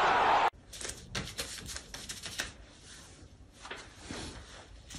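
A loud roar cuts off suddenly about half a second in. Soft, irregular rustling and tapping follow as a hand lays a strip of paper over a cat on a wooden floor.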